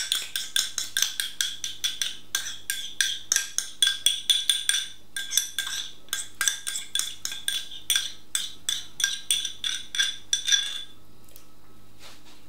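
A spoon knocking and scraping against a metal pan, about four knocks a second with a ring on each, while stirring crème fraîche through a thick chicken, ham and leek pie filling. The knocking stops near the end.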